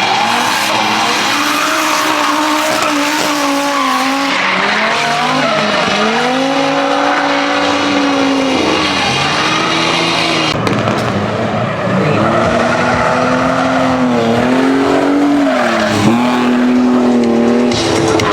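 Car engine revving hard during a drift, its pitch climbing, holding and dropping again several times, with tires squealing.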